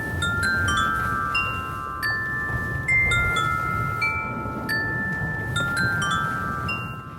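Wind chimes ringing: clusters of struck metallic tones at irregular intervals, each ringing on for a second or more, over a low rumbling background noise.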